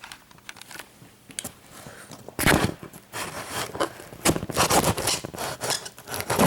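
Packaging being handled and opened by hand: a run of irregular scrapes and rustles starting about two and a half seconds in.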